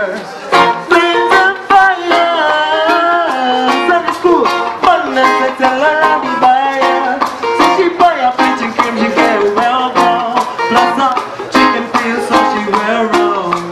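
Live band music: an acoustic guitar strummed in a steady rhythm, with a singer's voice over it through a microphone.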